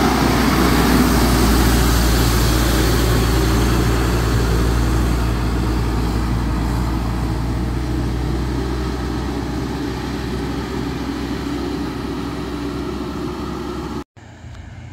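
Heavy truck's diesel engine pulling hard up a steep mountain-pass grade close by, a steady low drone that slowly fades over the stretch, then cuts off abruptly near the end.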